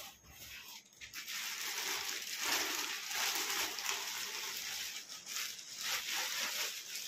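Clear polythene packaging bag crinkling and rustling as it is pulled up and off a metal-mesh vegetable trolley rack, in uneven surges that grow louder about two seconds in.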